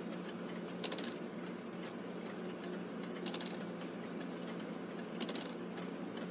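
Brass clock strike-train works clicking as the movement is turned by hand: three short bursts of rapid metallic clicks about two seconds apart, over a faint steady hum.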